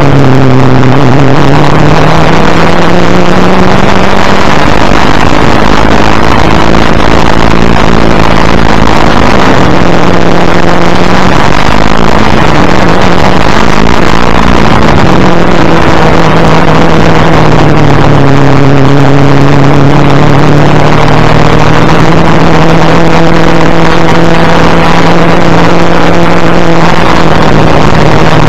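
Ford Falcon XD Group C touring car's 351 Cleveland V8 running hard at racing speed. The engine pitch dips and climbs again several times through gear changes and corners. Heavy wind rush on the bumper-mounted microphone overloads the recording throughout.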